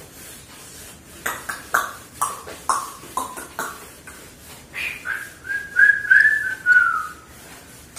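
Whiteboard eraser wiped hard across a whiteboard in quick strokes, about two a second, each stroke giving a short squeak that drops in pitch. Later comes a high whistling tone, held for about two seconds with small steps in pitch, that falls away at the end.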